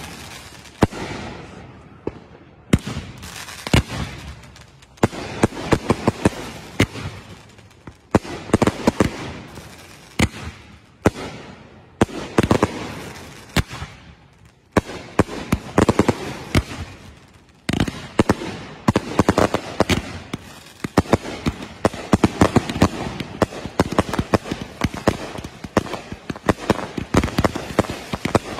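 Consumer aerial fireworks (multi-shot cakes) firing in a finale: volleys of sharp launches and bursts with crackle, with short lulls in the first half and an almost unbroken run of bangs after about 18 seconds.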